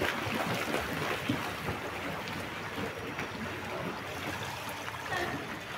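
Swimming-pool water splashing and lapping: a steady wash of water noise with a few small splashes.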